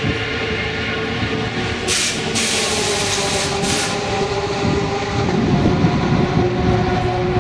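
A steady mechanical drone in a race-car pit garage, broken by two bursts of compressed-air hiss, the first about two seconds in and lasting over a second, the second shorter, from the pneumatic air lines and tools used to work on the car's wheels.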